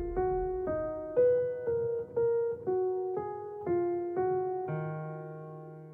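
Background music: a piano-like keyboard plays single notes, about two a second, then ends on a held chord that fades out.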